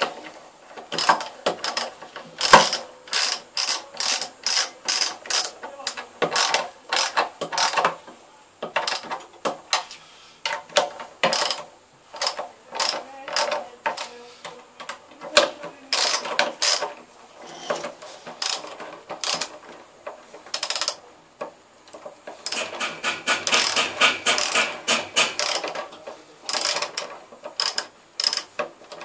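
Ratchet socket wrench clicking in short runs of strokes as the nuts on a water heater's heating-element flange are tightened in a cross pattern, with a longer, faster run of clicks near the end.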